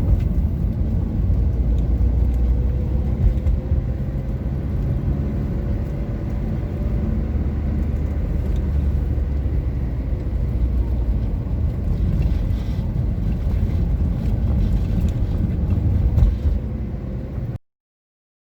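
Car driving, a steady low rumble of engine and road noise, with a faint rising whine a few seconds in. The sound cuts off abruptly about a second before the end.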